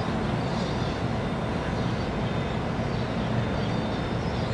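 Distant R142 subway train approaching on the elevated steel structure: a steady low rumble.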